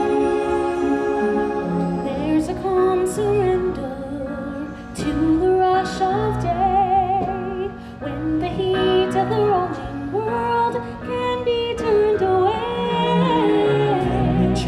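Stage show music: sustained chords, then from about two seconds in a female voice singing long held notes with vibrato over the accompaniment, with no words picked out.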